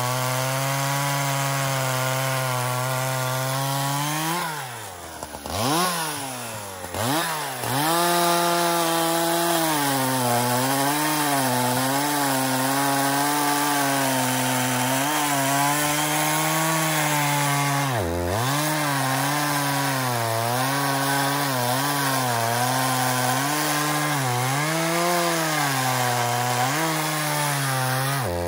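Husqvarna 365 X-Torq two-stroke chainsaw cutting through a beech log under load, running at a steady high pitch. About five seconds in the revs fall away and climb back twice as the throttle is eased, and the note dips and recovers briefly again about two thirds of the way through and just before the end.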